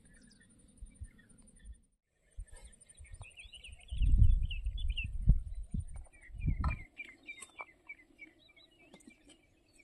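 Birds chirping in quick runs of short calls over a high, rapid pulsing trill. About four to seven seconds in, loud low rumbles of wind buffet the microphone.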